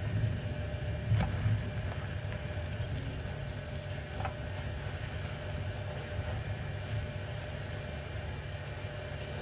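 Steady low rumble of a gas stove burner under a pancake cooking in a ceramic pan, with a few light taps of a silicone spatula against the pan about a second in and again about four seconds in as the pancake is flipped and pressed.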